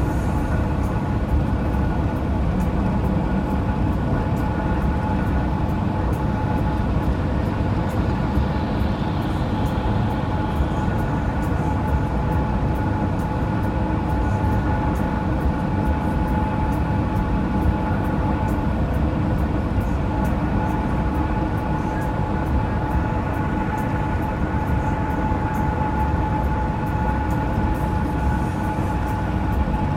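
Steady road noise of a vehicle cruising on an interstate highway: a low tyre-and-engine drone with a faint steady whine on top.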